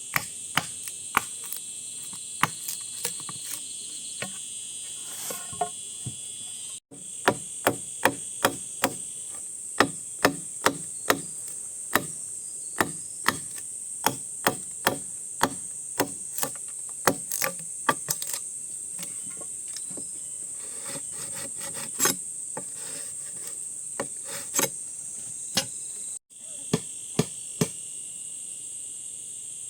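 Repeated sharp tool strikes, about two a second through the middle stretch and more scattered before and after, over a steady high chirring of insects.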